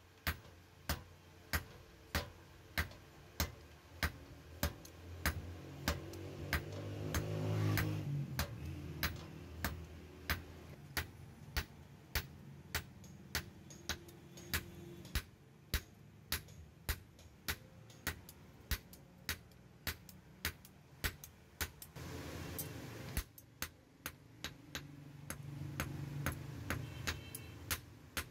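Hand hammer striking a hot leaf-spring steel knife blade on a steel anvil block: a steady beat of about two blows a second, each with a bright metallic ring. A low rumble swells and fades a few times underneath.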